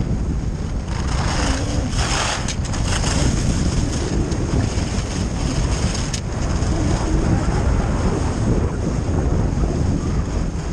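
Wind rushing over a skier's body-worn camera microphone during a fast downhill run, a steady low buffeting. Skis hiss over the snow, louder about two seconds in.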